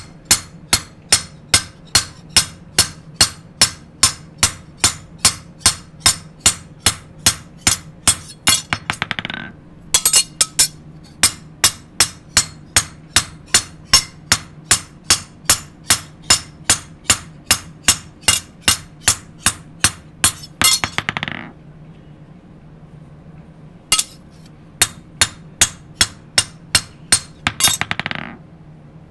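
Hand hammer striking a steel kitchen-knife blade on a small anvil block in quick, even blows, about three a second, each a bright ringing clink. This is nama-tataki, cold hammering to compact the blade's steel before hardening. The blows pause briefly about nine seconds in, and again for a couple of seconds a little past twenty seconds.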